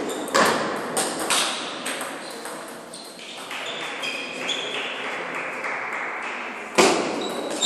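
Table tennis rally: the plastic ball clicking off paddles and bouncing on the table, a hit every half second or so, with the loudest strike near the end.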